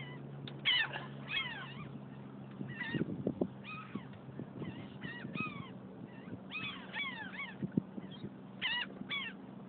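Terns calling over and over, short pitched calls that fall in pitch, often several in quick succession, over a steady low hum. A few soft knocks come about three seconds in and near the end.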